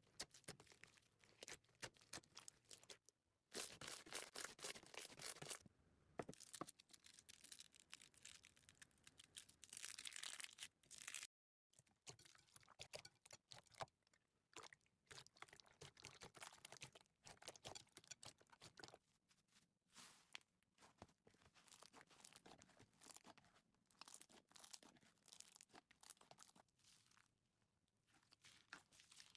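Slime being squeezed and poked by hand, giving dense crackling and crunching clicks, with a brief dropout about eleven seconds in.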